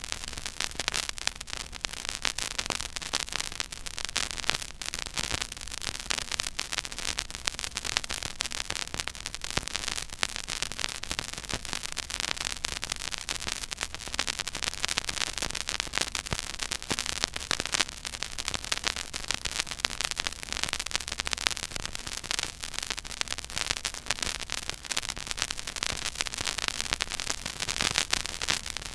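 Stylus running in the silent, unmodulated groove of a 12-inch 33⅓ rpm vinyl record: continuous surface crackle, with dense pops and clicks over a steady hiss and a faint low hum.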